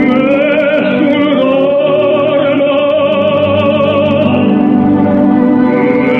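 Operatic tenor singing a long held note with wide vibrato, accompanied by an orchestra, in an old live opera recording.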